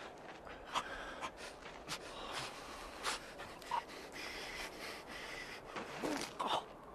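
Irregular, heavy breathing and gasps from a man stabbed in the throat, choking as he dies.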